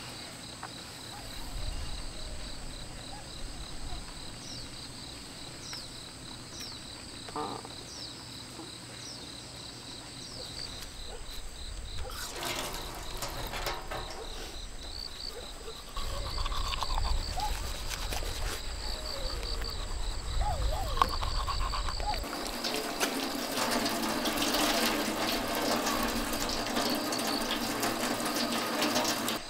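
Water running from an outdoor tap into a stainless steel sink while a man splashes his face, a steady rush that starts about three-quarters of the way in and is the loudest sound. Before it, insects chirp in a steady pulsing rhythm.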